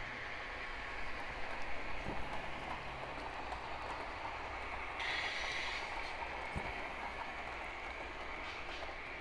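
HO-scale model train rolling along its track, pulling a string of box cars: a steady whirring and rolling noise that brightens and grows louder about five seconds in, with a few light clicks from the wheels on the rails.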